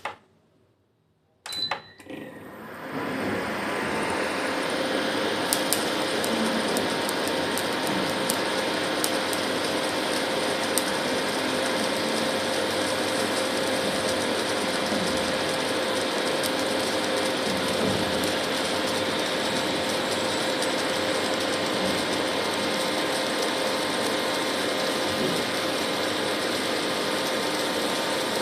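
Induction cooktop starting up: a click and a short high beep, then its cooling fan and coil spin up over about two seconds and run steadily, a hiss with a steady hum and faint ticking.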